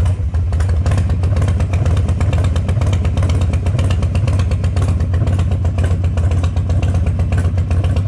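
Harley-Davidson 1200's V-twin engine idling steadily, a low, even rumble just after starting.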